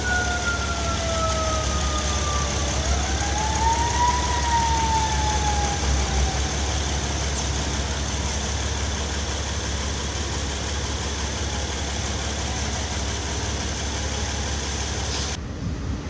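Steady running noise of the 2007 Honda Odyssey's engine and A/C system under the open hood, with a low hum. Over it, an emergency vehicle siren wails for the first six seconds or so: falling in pitch, rising once about three seconds in, then falling away.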